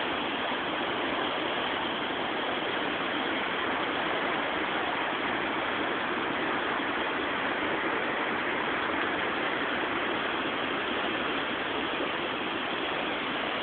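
Swollen river in flood, brown turbulent water rushing and churning in a steady, unbroken wash of noise.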